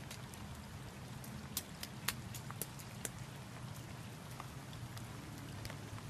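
Steady rain falling, with sharp, irregular ticks of single drops landing close by; one tick about two seconds in is louder than the rest.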